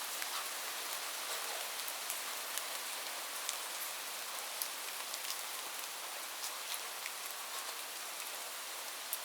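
Steady rain falling, an even hiss with many individual drops ticking close by at irregular moments.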